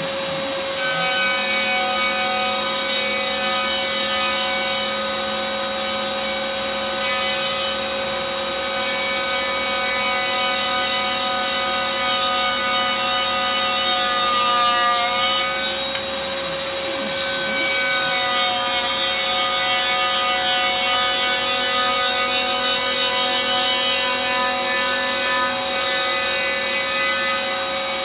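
CNC router spindle running with a steady high whine while its bit faces off the top of a redwood board, with the rough, rasping noise of the cut. The whine dips in pitch briefly about halfway through.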